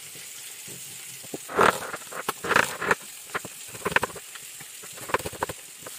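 Chef's knife slicing an onion on a wooden cutting board: a series of irregular knocks as the blade goes through and strikes the board. A faint steady sizzle of frying runs underneath.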